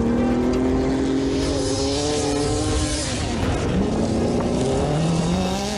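Race car engine at high revs, its pitch climbing slowly, then dropping away about three and a half seconds in and climbing again.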